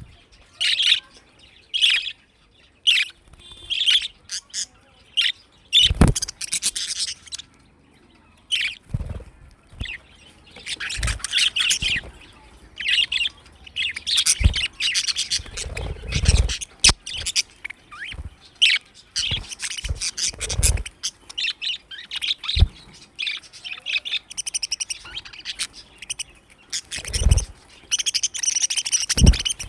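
A group of budgerigars chirping and chattering in irregular bursts of short, high chirps with brief pauses between them. A few soft low thumps are mixed in.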